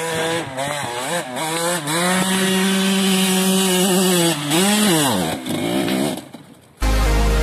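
Dirt bike engine revving: it climbs in pitch, holds high revs for about two seconds, then falls away, with shorter throttle blips before and after. Music with a heavy bass starts near the end.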